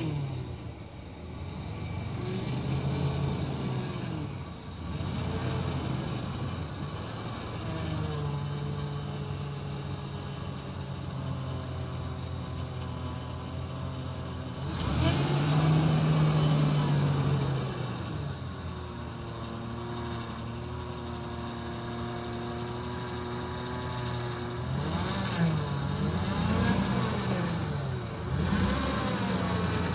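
Toyota Land Cruiser 90 engine pulling the truck slowly up a rutted dirt slope at low revs. The engine speed rises and falls briefly a few times, most strongly about halfway through and again near the end.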